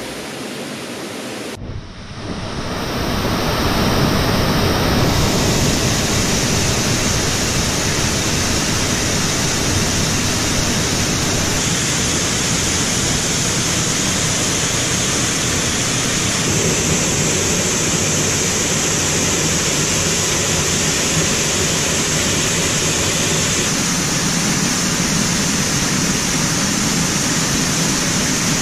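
Steady, loud rush of running water, beginning abruptly about two seconds in.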